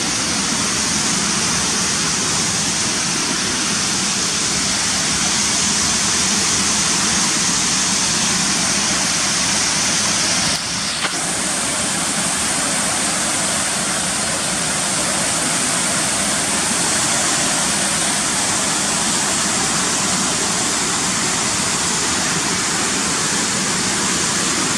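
A waterfall of about 30 feet in heavy flow, its falling water making a loud, steady rush. The sound dips briefly about halfway through.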